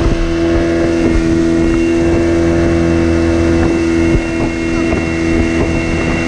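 Small boat's outboard motor running steadily at an even speed, a constant hum.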